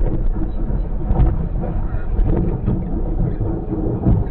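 Vehicle and road noise: a steady low rumble.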